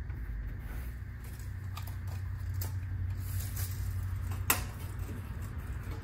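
Hands handling a template and tape measure against a bare steel car door: light rustling and small ticks, with a single sharp click about four and a half seconds in, over a steady low hum.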